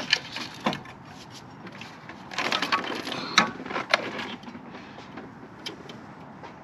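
Clunks and a scrape of heavy metal parts being handled as the cylinder head is lifted off a BMW M50 engine: a few knocks, a scraping stretch, then two sharp knocks and some light ticks.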